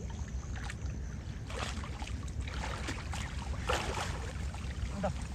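Water sloshing and splashing irregularly as a fine-mesh drag net is hauled through shallow water by people wading, working it for shrimp.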